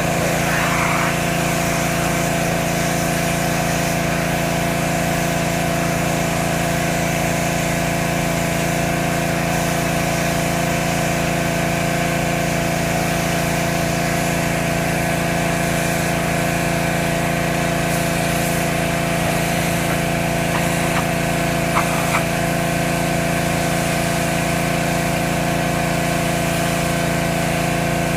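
Pressure washer running steadily, its small engine and pump holding one even pitch with a hiss of spray over it. A couple of short knocks come about three quarters of the way through.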